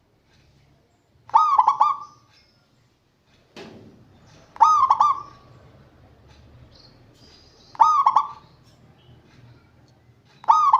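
A zebra dove (perkutut) cooing its song phrase, a quick run of bubbling notes, repeated about every three seconds. A single knock sounds a little after the first phrase.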